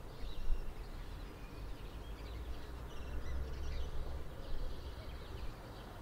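Small songbirds chirping and twittering in short, scattered high calls, over a low rumble that swells about halfway through.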